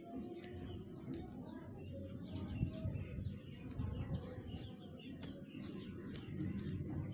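Faint background ambience of birds chirping over a low steady rumble, with a few short clicks.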